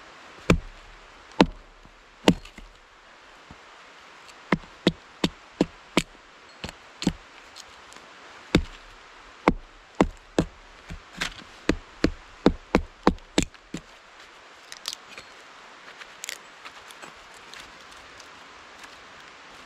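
Wood being chopped with a blade, a series of sharp knocks. A few come about a second apart, then quicker runs of two to three a second, and after the chopping stops a few faint lighter clicks follow.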